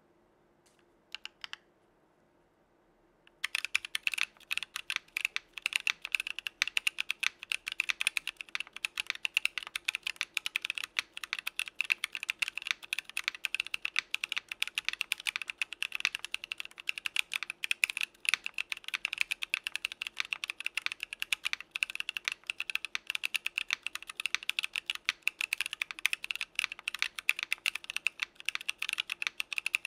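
Geonworks Frog mechanical keyboard with lubed Gazzew Boba U4T tactile switches in an aluminium plate, no foam or dampening, and CRP keycaps. Two lone key clicks about a second in, then fast, continuous typing from about three and a half seconds in.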